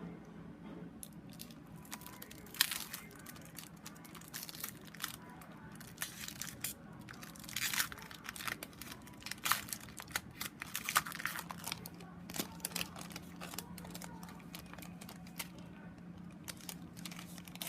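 Plastic packaging crinkling and tearing in irregular handling noises as a card-making kit is opened and unpacked.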